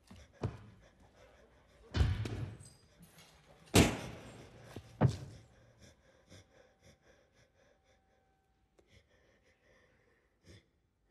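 Film sound effects of a chimpanzee's attack: a soft knock, then three heavy thuds of blows landing about one and a half seconds apart, each dying away in the room, followed by faint small ticks and a brief click near the end.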